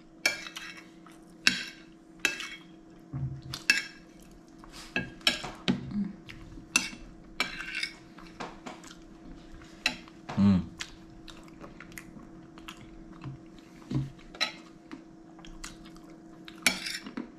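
Metal spoon clinking and scraping on a plate in scattered short strokes while scooping cake and ice cream, with chewing in between. A faint steady hum underneath.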